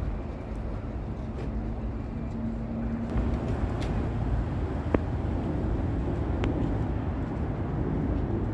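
Street traffic: vehicle engines running and passing, with a sharp click about five seconds in.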